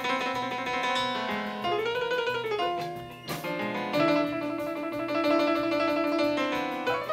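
Piano played live with band accompaniment: full sustained chords, with another instrument twice swooping up and back down in pitch.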